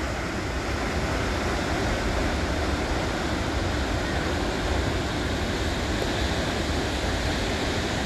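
Krimml Waterfalls: a steady, even rush of falling water with a deep rumble underneath.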